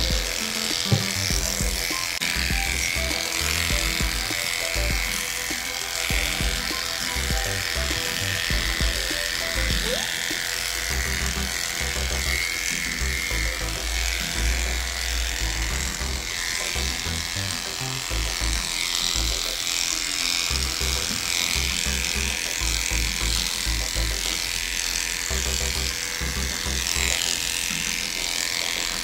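Background music with a steady beat, over the buzz of cordless electric dog clippers shaving through a matted coat.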